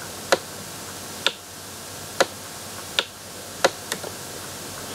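A series of sharp, dry clicks over a quiet background: the first few roughly a second apart, then two quicker ones near the end.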